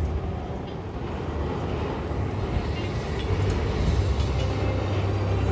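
Low, steady rumble of a large vehicle or machine, growing louder about three seconds in.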